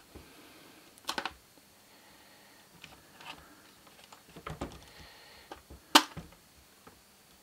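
Small plastic cable connectors being unplugged from the circuit board inside a FrSky Taranis radio transmitter: scattered clicks, with a short run of clicks about a second in, another about four and a half seconds in, and one sharp click, the loudest, about six seconds in.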